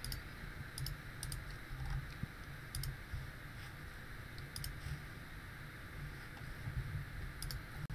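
Computer mouse clicking a handful of times, mostly in quick pairs, over a low steady hum.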